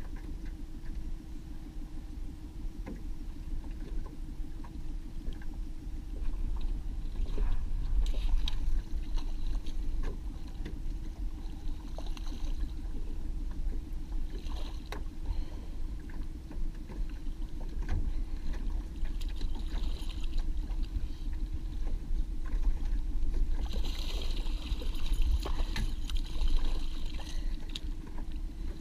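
Boat motor running steadily at trolling speed, a continuous low drone, with light clicks and water sounds and a louder patch of splashing about three-quarters of the way through.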